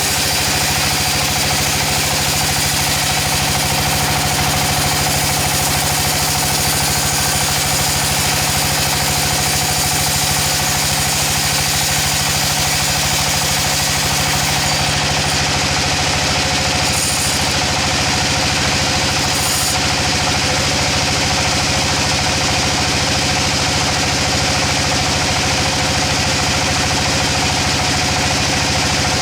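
Engine-driven sawmill machinery running steadily, an unchanging mechanical drone with a constant hum.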